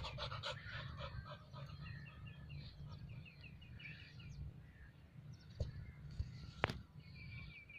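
Small birds chirping in quick series of short high notes over a steady low rumble, with two sharp clicks about two-thirds of the way through.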